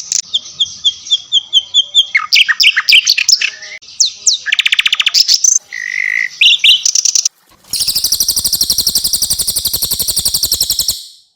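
Cililin and sikatan londo songbird song, a loud birdsong training track: varied quick chirps, whistles and sliding notes for about seven seconds. After a short break comes a long, very fast high trill for about three seconds that cuts off just before the end.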